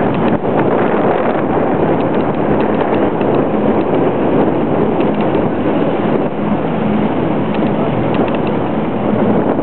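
Motorboat under way: a steady engine hum mixed with rushing water and wind on the microphone.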